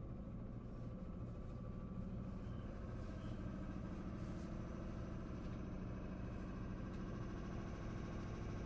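Interior sound of a JR East 211 series 3000 electric multiple unit: a steady low rumble from the train, with faint higher steady tones growing stronger in the last few seconds.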